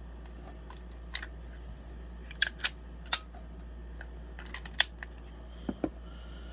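A Springfield Hellcat pistol being handled, giving a string of scattered sharp clicks over a steady low hum.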